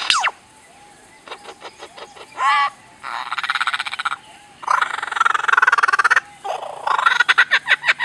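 Superb lyrebird singing a mimicry medley: a falling laser-like sweep, a string of clicks, a short wavering trill and fast rattling phrases, then a run of rapid falling laser-like 'pew' sweeps near the end.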